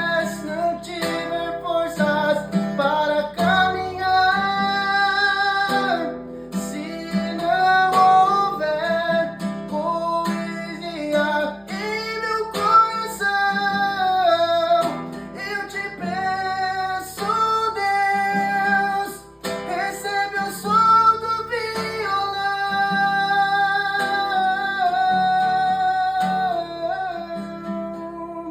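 Acoustic guitar (violão) playing a slow hymn melody, with plucked and strummed notes.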